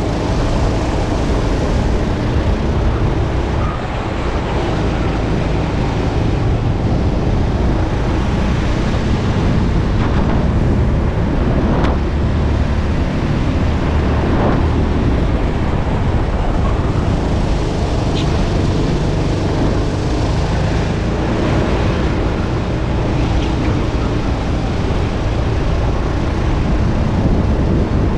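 Racing kart's engine running at speed, mixed with steady wind rush over the onboard microphone.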